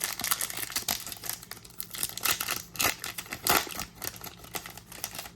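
A trading-card booster pack wrapper being torn open and crinkled: a dense run of crackling and ripping that stops abruptly near the end.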